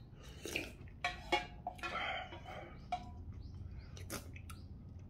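Slurping and chewing kalguksu noodles in hot broth, in short irregular bursts, with a few light clicks of wooden chopsticks against a stainless steel pot.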